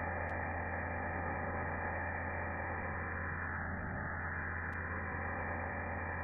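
Pressure washer running steadily: a constant muffled hiss over a low, even hum, with no change in pitch or level.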